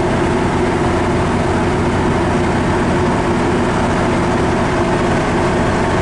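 MARC commuter train's diesel locomotive running close by at very low speed, a steady loud engine hum with a few steady tones.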